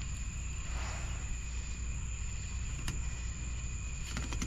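Steady high trilling of crickets, with a low hum underneath. A few light clicks from the fillet knife working through the fish come about three seconds in and again near the end.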